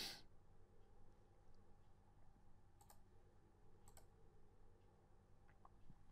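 Near silence with two computer mouse clicks about a second apart, each a quick double tick of press and release. There is a short hiss at the very start.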